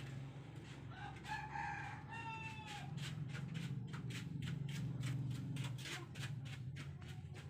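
A rooster crowing once, starting about a second in and lasting about a second and a half, over a steady low drone. A run of rapid sharp clicks follows.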